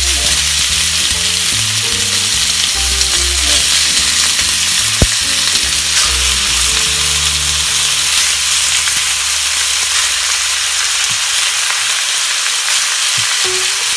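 Raw chicken pieces sizzling loudly in smoking-hot peanut oil in a wok as more handfuls are dropped in, a steady hiss of frying. A single sharp click about five seconds in.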